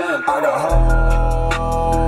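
Hip hop song playing over the truck's Bluetooth-connected Jensen car stereo. A heavy bass comes in a little under a second in, under held notes.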